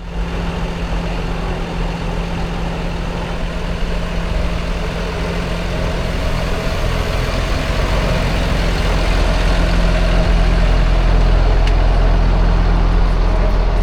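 Parking lot tram's tractor engine idling, a steady low hum and rumble that grows gradually a little louder.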